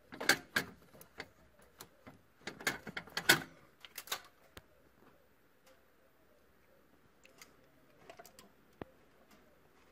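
Screwdriver clicking and scraping against the metal of a Renault Scénic 2 steering rack's end bushing as it is pried out, in quick clusters of sharp taps during the first half, then only scattered ticks. The bushing is the worn part being replaced to cure play in the steering rack.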